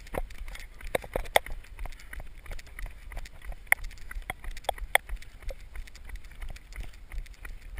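Running footsteps on asphalt picked up by a body-worn action camera: a string of uneven knocks and taps, several a second, over a low rumble of wind and jostling on the microphone.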